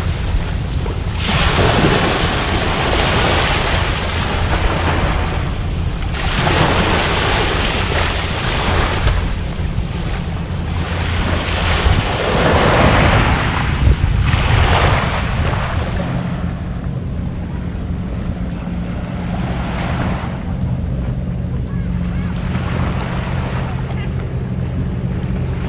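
Waves washing onto the shore in surges every few seconds, with wind buffeting the microphone. About two-thirds of the way in the surges die down and a steady low engine hum takes over.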